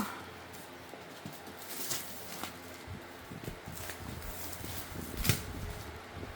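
Scattered clicks and light knocks from objects being handled, with one sharper click about five seconds in.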